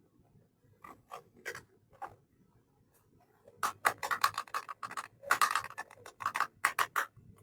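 Small plastic toy kitchen pieces and their packaging being handled: a few separate clicks, then from about three and a half seconds in a quick run of scratchy rustling and clacking.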